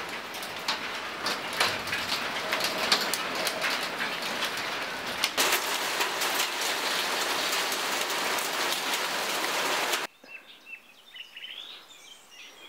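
Heavy downpour beating on clay roof tiles: a loud, dense hiss with many sharp drop strikes. About ten seconds in it cuts off suddenly, leaving quiet outdoor air with birds chirping.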